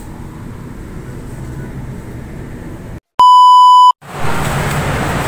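A single loud, steady electronic beep lasting under a second, dropped in between a short gap of dead silence and a cut to another scene: an editing sound effect. Before it a low steady hum; after it a louder, even outdoor noise.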